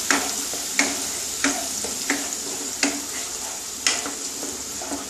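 Wooden spatula stirring a thick green leaf paste in a non-stick kadai, scraping against the pan about every three-quarters of a second over a steady sizzle. The paste is frying in mustard oil on a low flame as its water slowly cooks off.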